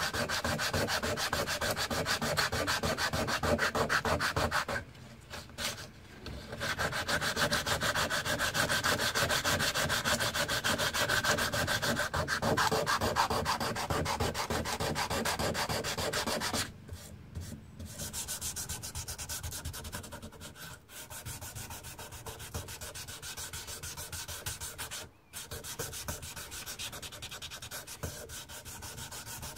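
Sandpaper rubbing on a knife's wooden handle scales by hand in fast back-and-forth strokes. It pauses briefly about five seconds in and again about seventeen seconds in, and the strokes are quieter after the second pause.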